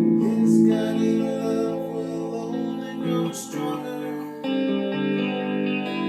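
A band playing a song, guitars to the fore, holding chords that change every second or two.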